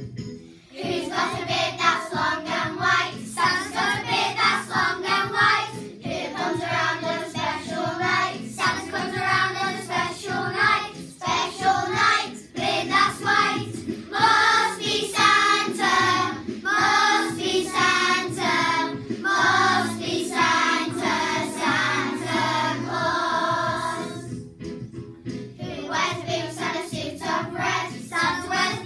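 Children's choir singing a Christmas carol together over an instrumental accompaniment. The singing comes in about a second in and breaks off briefly near the end before going on.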